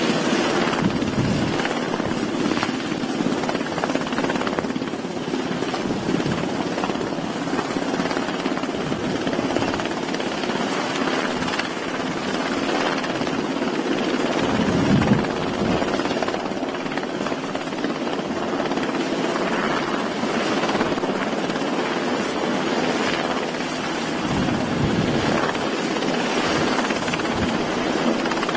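Navy Seahawk helicopter's rotors running steadily overhead, with a brief louder low swell about halfway through.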